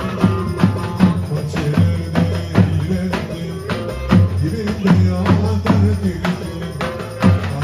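Davul, the large Turkish double-headed bass drum, beaten in a steady dance rhythm along with other music.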